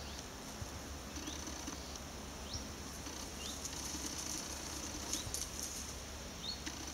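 Steady high trill of insects with a short rising chirp about once a second. About four to five seconds in comes a brief spell of crisp crackling and crunching in the undergrowth, from the beaver feeding among the plants.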